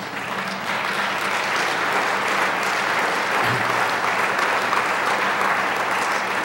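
Audience applauding, swelling about a second in and then going on steadily.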